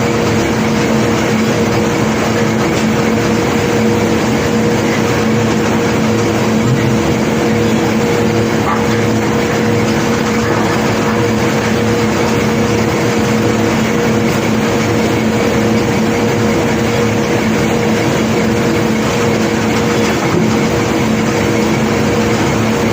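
Engine of heavy unloading machinery running steadily, a constant hum at an unchanging pitch over a steady noise.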